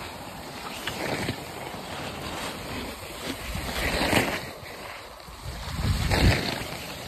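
Skis sliding and scraping over snow, with wind rushing over the microphone. Two louder swooshes, about four and six seconds in.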